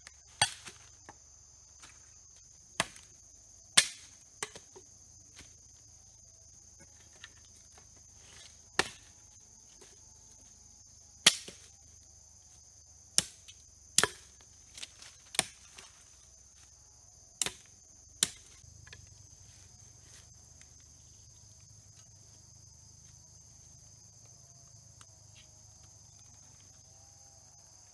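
Sharp cracks and knocks of dry firewood being chopped and broken to build a fire, about a dozen irregular blows that stop about two-thirds of the way through. A steady high chirring of insects runs underneath.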